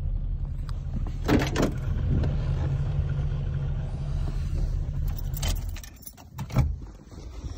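Carbureted GM G-body car engine idling low and steady with its choke now working, then switched off about six seconds in. The driver's door is opened about a second in, and there are clicks and a clunk of the key and door around the shut-off.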